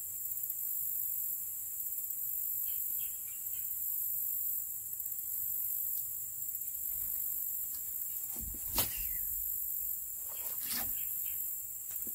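Steady high-pitched insect chorus, with a single knock about two thirds of the way through and a few fainter clicks soon after.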